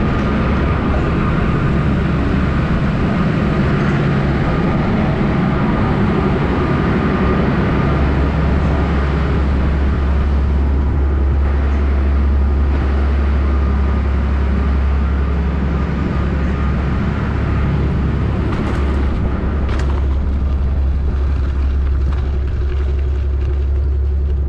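Steady low rumble of wind on a mountain biker's action-camera microphone, mixed with the bike rolling off the chairlift and across a wooden deck and gravel. Two sharp clicks come about three quarters of the way through.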